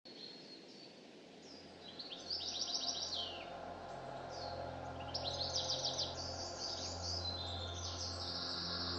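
Small songbirds singing and chirping, with two rapid trilled phrases, one about two seconds in and one a little past the middle, over a low steady hum that fades in.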